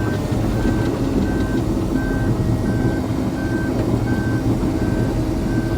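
John Deere 750L crawler dozer's diesel engine running steadily under load while it reverses, its backup alarm beeping about one and a half times a second.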